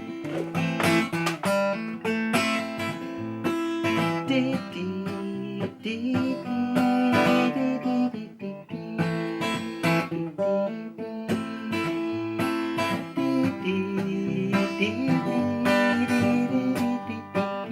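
Acoustic guitar strummed in a steady rhythm: an instrumental break between verses of a song.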